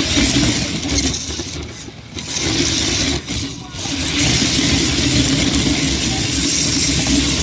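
Tamiya Knight Hauler RC semi truck driving on drift wheels, heard up close from on board: its electric motor and drivetrain run with a steady hum and hiss in bursts of throttle, easing off briefly about one, two and three-and-a-half seconds in.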